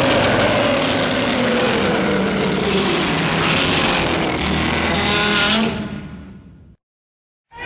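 A Shin Godzilla sound effect: one long, loud, layered sound whose pitches slide slowly downward, fading out about six seconds in.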